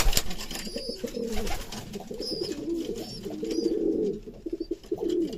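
Homing pigeons cooing, several low wavering coos overlapping one another.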